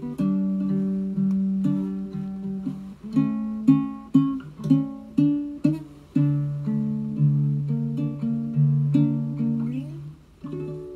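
Ukulele plucked by hand in a slow, unaccompanied melody of single notes and chords. Near the end a note slides upward, then a final chord is struck and left to ring out.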